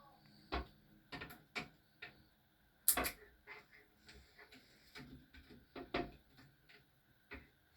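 Irregular clicks and knocks from handling a new toilet seat still in its packaging, the loudest about three seconds in.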